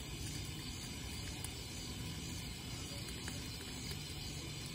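Steady outdoor background hiss on a summer evening, with a low rumble and a few faint ticks; no distinct event stands out.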